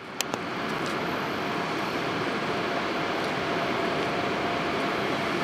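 Škoda-built ChS4 electric locomotive drawing a passenger train slowly into a station: a steady rushing rumble with a faint steady tone running through it. The sound fades in over the first second, with two sharp clicks just after it begins.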